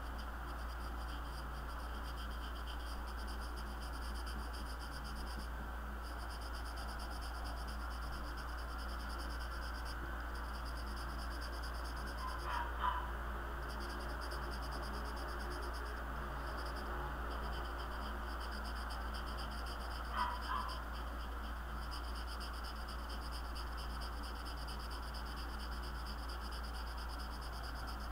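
Felt-tip marker scratching on sketchbook paper while colouring in a dark area, over a steady low hum. Two short squeaks stand out, about halfway through and again about two-thirds of the way through.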